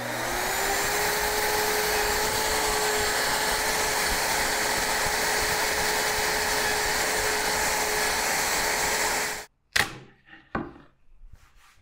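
Bosch plunge router switched on, its motor speeding up over the first half second to a steady high whine and running with the bit spinning free. The sound cuts off abruptly about nine seconds in, followed by a few light knocks of a plywood jig being set on the bench top.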